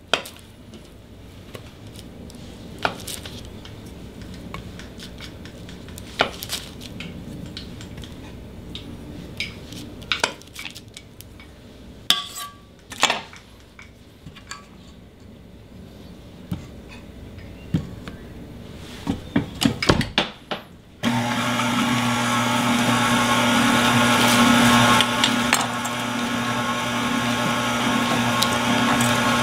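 Scattered clinks and knocks of a spatula and butter against a stainless steel mixing bowl, then about two-thirds of the way through a KitchenAid stand mixer with a whisk attachment switches on and runs steadily with a hum and whine, beating butter into brownie batter.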